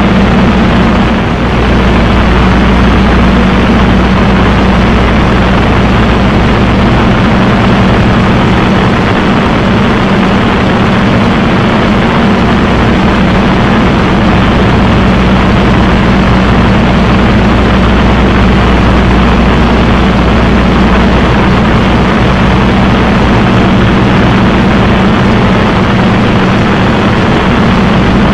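Spitfire's V12 piston engine and propeller droning steadily in cruising flight, heard inside the cockpit with the rush of the airflow.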